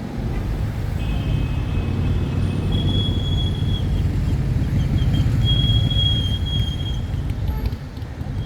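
Street traffic: a vehicle rumbling past, growing louder toward the middle and easing off near the end, with a thin high-pitched squeal in several steady stretches.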